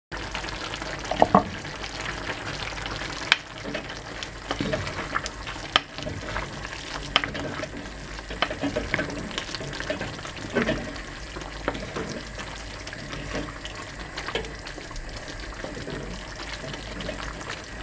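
Spaghetti stew simmering in a terracotta cazuela, stirred and tossed with two wooden spoons: a steady bubbling hiss broken by scattered sharp clacks of the wooden spoons against the clay dish.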